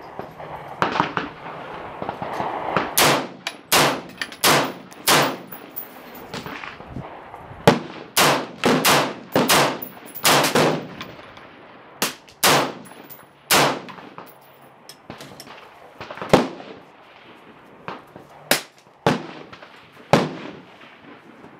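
Rifle gunfire from an AR-15 or a .308: about seventeen sharp shots in quick semi-automatic strings of two to four, roughly two a second, with short pauses between.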